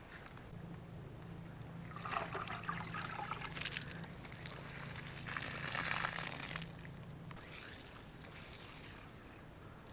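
Water pouring and splashing into a plastic jug drilled full of holes, in two spells about two seconds and five seconds in, over a steady low hum.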